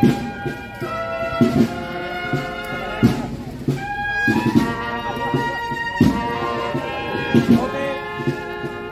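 Brass band playing a slow procession march: a held brass melody over steady drum beats.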